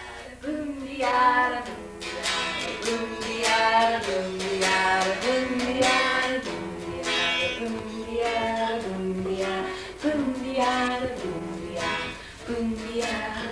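Girls singing a song with a guitar playing along, the melody moving in long held notes.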